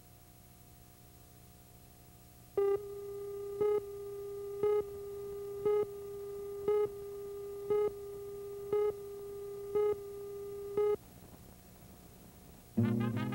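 Broadcast tape countdown leader: a steady tone with a short, louder beep about once a second, nine beeps in all, cutting off about 11 seconds in. Brass-led music starts near the end.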